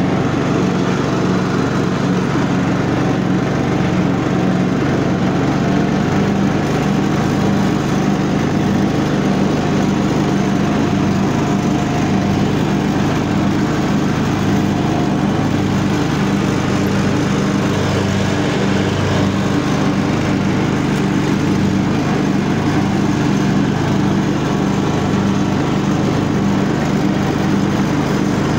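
Craftsman T1200 riding lawn mower's engine running steadily as the tractor drives and mows grass.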